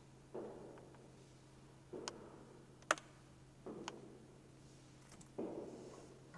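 Slow, faint footsteps on a stage floor, one soft step about every second and a half to two seconds, with a few sharp clicks between the steps and a steady low hum underneath.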